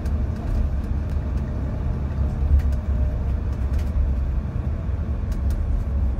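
Steady low rumble of a moving road vehicle heard from inside the cabin: engine and tyre noise, with a few faint ticks.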